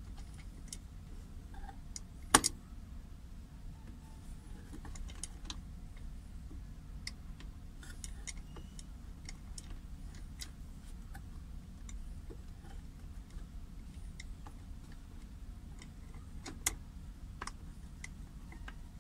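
Scattered metallic clicks and clinks of a car's handbrake lever mechanism being handled while the handbrake cable is unhooked from it, with a sharp click about two seconds in and another near the end, over a low steady rumble.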